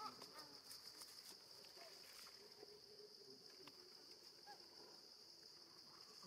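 Faint outdoor ambience: a steady high-pitched insect drone, with a few soft, short chirping calls scattered through it.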